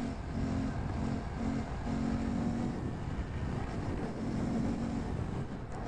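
2018 Honda Grom's 125 cc single-cylinder engine running at a steady cruise, its even note coming and going under heavy wind rumble on the microphone.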